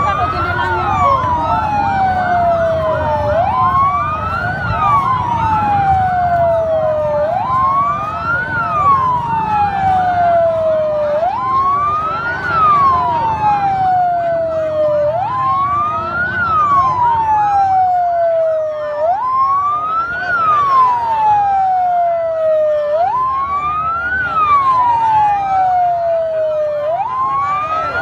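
Emergency vehicle siren wailing in a slow repeating cycle, a quick rise then a long fall about every four seconds, with fainter siren tones crossing it. A low rumble of crowd and traffic lies underneath.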